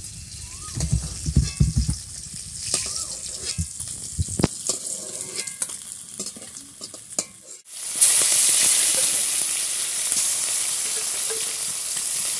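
A metal spatula scraping and clinking in a kadai as fried snakehead (leta) fish pieces are lifted out. After a sudden break about two-thirds of the way through, hot oil sizzles loudly and steadily as the next fish pieces fry.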